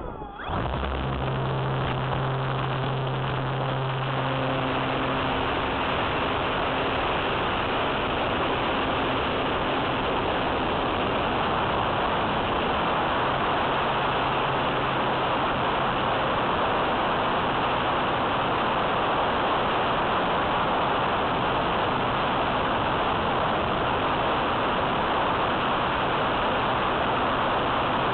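Electric motor and propeller of an E-flite Apprentice S15e RC trainer plane running steadily at high throttle, with wind rushing over the small onboard camera's microphone, through the takeoff from grass and the climb-out. It dips briefly just at the start, and a low hum comes and goes.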